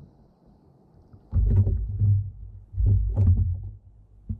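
Water and hull noise from a kayak, coming in three low surges about a second and a half apart.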